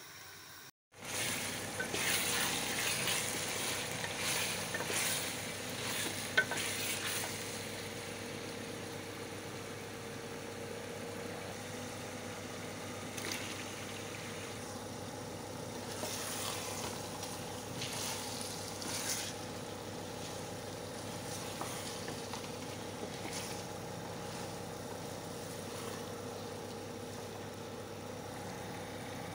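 Minced meat and potatoes sizzling in a metal pot, with a spoon stirring and scraping against the pot now and then. The sizzling starts after a brief gap about a second in, and a faint steady hum runs underneath.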